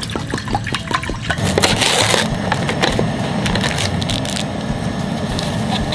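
Crinkling and rustling of a cup ramen's paper lid and packaging being peeled open by hand, with a louder crinkle about two seconds in.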